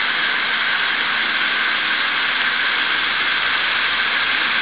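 Steady hiss of water running from a garden hose onto the soil and gravel of a groundwater model.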